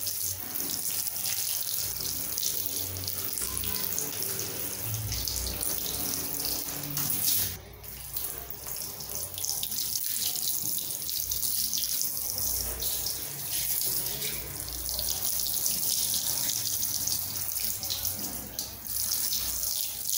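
Handheld shower head spraying water onto a long-haired cat's wet fur: a steady hiss of running water, cut off for a moment about seven seconds in.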